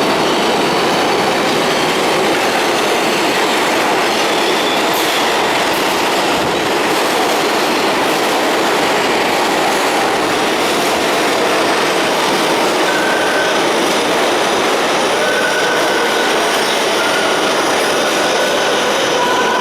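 R142A subway train running through the station, with a loud steady rolling noise of steel wheels on rail. Thin high wheel squeals come and go, mostly in the second half.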